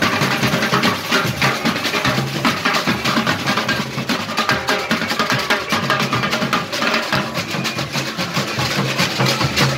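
Samba-school bateria playing a continuous, dense samba groove: deep surdo bass drums under rapid stick strokes on caixa and repique drums.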